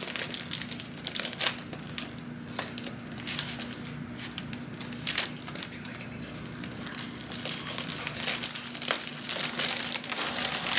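Thin crinkly material being handled, giving off irregular small crackles and crinkles, over a steady low hum.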